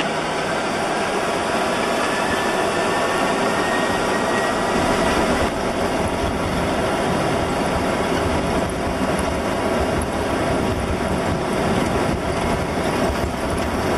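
Airbus A300-600R jet engines heard from the cockpit at flexible takeoff thrust, a steady loud roar with a low rumble from the takeoff roll. A faint whine rises in pitch over the first few seconds.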